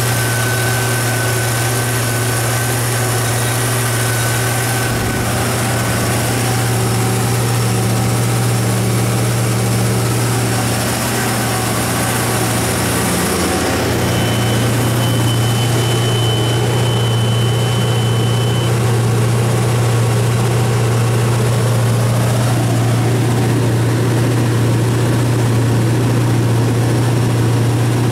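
GM 5.7L V8 engine of a Baldor 67 kW natural-gas generator set running at a steady governed 1800 rpm, a low, even hum that never changes speed. A faint thin whine comes in for a few seconds midway.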